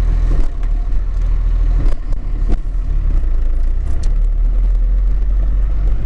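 New Holland C185 compact track loader's diesel engine running steadily, heard from inside the cab as a low rumble, with a few sharp knocks.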